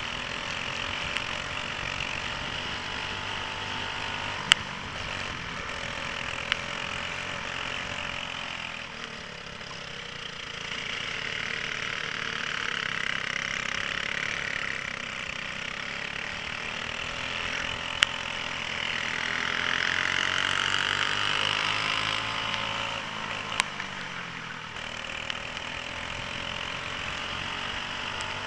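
Onboard sound of a racing kart's Briggs & Stratton Animal four-stroke engine under race load, its revs rising and falling with each corner and straight. A few isolated sharp clicks are heard over it.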